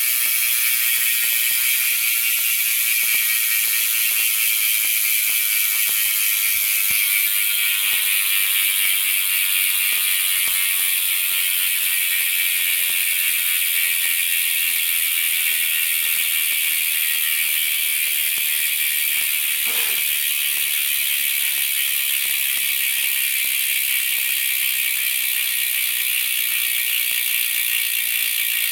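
BSD Backstreet cassette hub on a BMX wheel freewheeling in a spin, its pawls clicking over the ratchet ring so fast that they merge into a steady, high-pitched buzz. The hub is new and still carries its factory grease.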